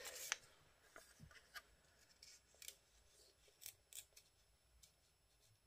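Faint, scattered crisp rustles and light clicks of paper cut-outs being handled and slid into place on a collage page, a handful of short separate sounds, thinning out toward the end.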